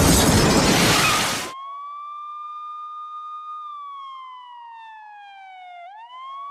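A loud burst of noise cuts off about a second and a half in, and a police siren takes over, wailing: it rises, holds, falls slowly, then sweeps back up near the end.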